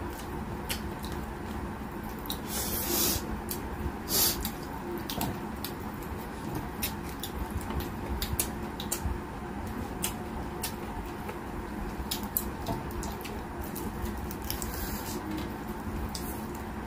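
Close-up eating sounds: wet chewing with lip-smacks and frequent sharp mouth clicks, and fingers working rice on a steel plate, over a faint steady hum.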